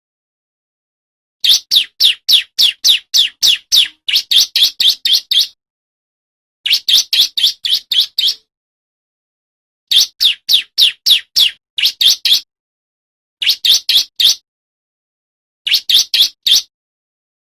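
Male bar-winged prinia (ciblek) singing: fast runs of sharp, high chirps, about five a second. They come in five or six bursts of one to four seconds, with short gaps of silence between them.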